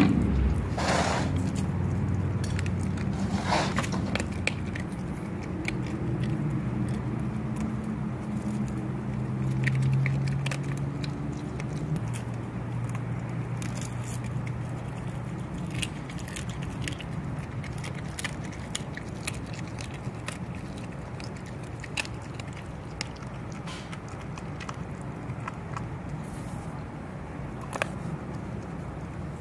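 Dog chewing and crunching through the bones and skin of a whole halibut, with scattered sharp cracks and clicks. Under it runs a low steady hum that fades away over the first half.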